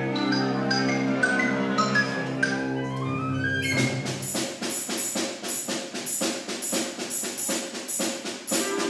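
Concert wind band playing: sustained brass and woodwind chords with a rising melodic line, changing about four seconds in to a quick, even rhythm of short percussion strokes over the lighter ensemble.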